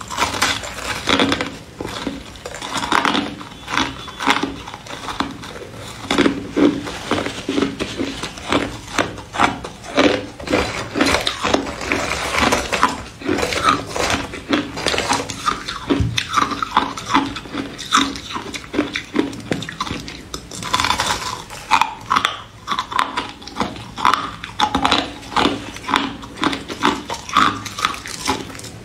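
Ice being bitten and crunched between the teeth in a continuous run of sharp, irregular crunches, several a second.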